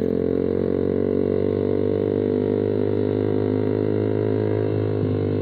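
Suzuki Satria FU's single-cylinder four-stroke engine breathing through a Kau Mahachai aftermarket racing exhaust, running at a steady engine speed as the bike cruises, a steady drone.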